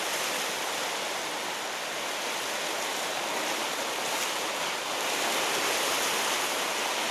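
Sea surf washing steadily against a rocky shore, a continuous even rush of water.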